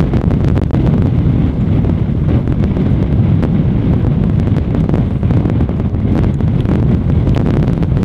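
Strong wind buffeting the microphone in a snowstorm: a loud, steady low rumble.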